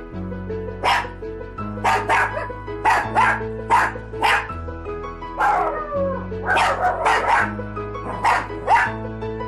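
A small dog barking sharply and repeatedly in play, the barks often coming in quick pairs, over background music with sustained low notes that change every second or so.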